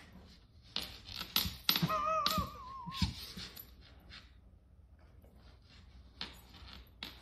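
Husky sniffing and nosing at a treat caught under her paw on a wooden floor: quick sniffs and light taps and clicks. Near two seconds in comes a short, wavering whine.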